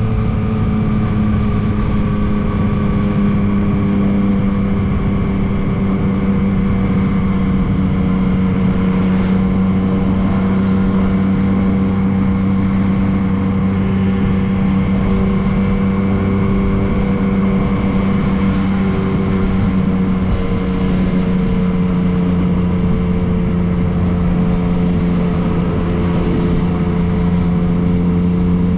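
Yamaha MT-09's inline three-cylinder engine running under way at a steady cruising speed, its pitch easing down slightly at the start and then holding steady.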